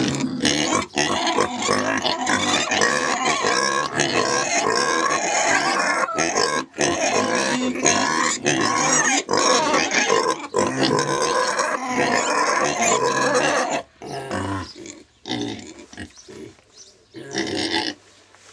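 Pigs squealing loudly together in a dense, unbroken chorus. After about 14 seconds it breaks up into scattered squeals and grunts.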